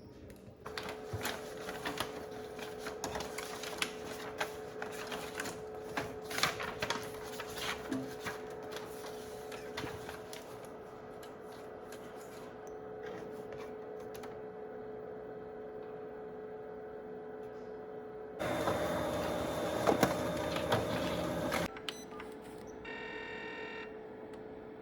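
Office printer running: a steady hum with scattered clicks and ticks, then a louder whirring run of about three seconds near the end, followed by a brief run of quick repeated electronic tones.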